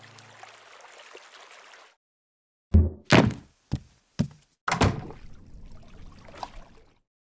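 A faint hiss, then five hard knocks about half a second apart, each dying away quickly, the first two loudest.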